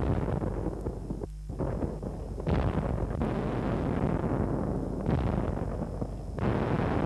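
Dense rumbling booms like artillery fire or explosions, with fresh blasts starting suddenly about two and a half seconds in and again near the end, and a brief dropout just over a second in.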